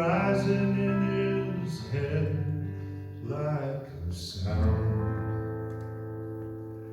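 Closing bars of a song on guitar: a few strummed chords, then a last chord about four and a half seconds in, left to ring and slowly fade out.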